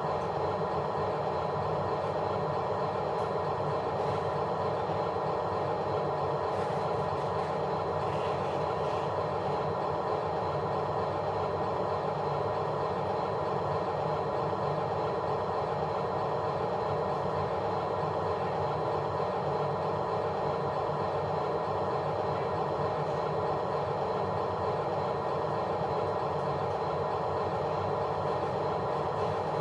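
A steady machine hum that holds the same pitch and level without a break.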